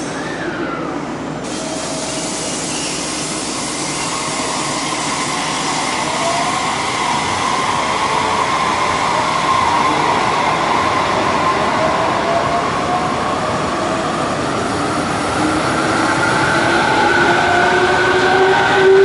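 Electric train running on rails, its wheel and motor noise getting steadily louder, with several whining tones slowly rising in pitch toward the end.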